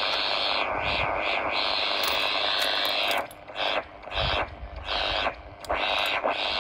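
Portable AM radio hissing with static as it picks up a homemade metal detector's coil oscillator. About halfway through, as a tin full of coins is held over the search coil, the hiss cuts out in three or four short gaps and comes back: the radio's response to metal near the coil.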